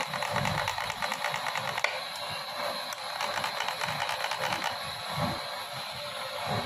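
Rapid mechanical clicking from a small jewellery-making tool, over a steady high whine.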